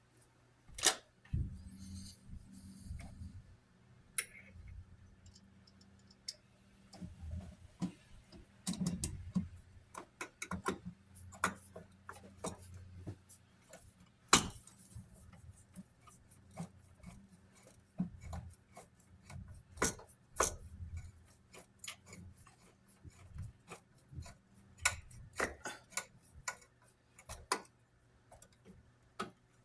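Irregular sharp clicks and taps of a screwdriver, screws and wire being worked at an electrical box while a ground wire is fastened under a green ground screw.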